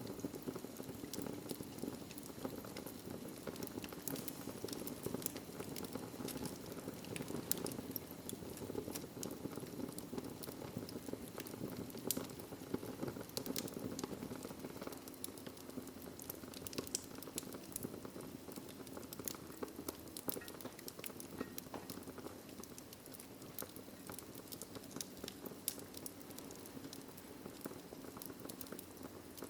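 Wood fire burning in a fireplace: a steady rush of flames with frequent sharp, irregular crackles and pops.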